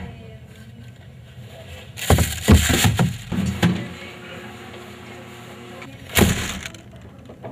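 Plastic garbage bag rustling and thumping as things are dropped into a lined trash bin from above, in two loud bursts: a longer jumbled one about two seconds in and a short one about six seconds in.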